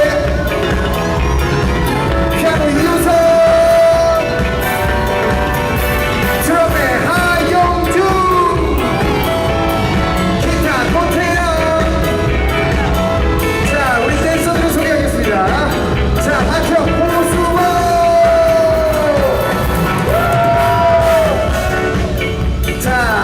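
Live pop concert: loud amplified dance-pop music with a strong steady beat and a sung vocal line, with crowd yells and cheers over it.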